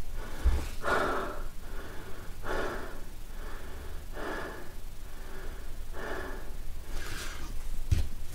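A man breathing hard from exertion at the end of a maximum-repetition exercise set, a loud breath about every second and a half. A short low thump near the end.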